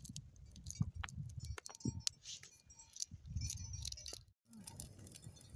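Small livestock bells clinking irregularly among a grazing flock of sheep and goats, with gusts of wind rumbling on the microphone.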